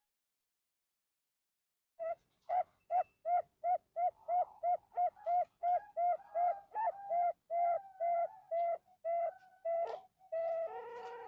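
Male zebra dove (perkutut) singing: a fast, even run of short whistled coos, about three a second, starting about two seconds in after silence. The song ends in a fuller, denser call.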